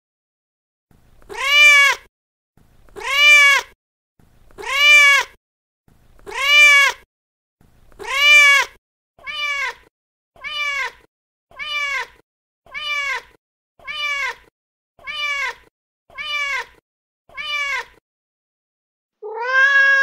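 Recorded cat meows played over and over at an even pace: five long, loud meows about a second and a half apart, then eight shorter, softer meows about a second apart, and one more starting near the end.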